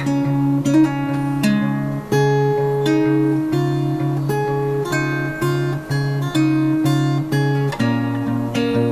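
Background music: an acoustic guitar picked in a steady, even rhythm of plucked notes over a repeating bass note.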